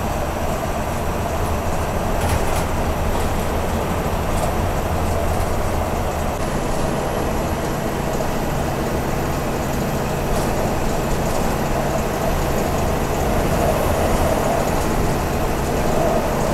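A GSRTC sleeper coach bus on the move: steady engine drone with road and rattle noise. About six and a half seconds in, the engine's note shifts to a new steady pitch.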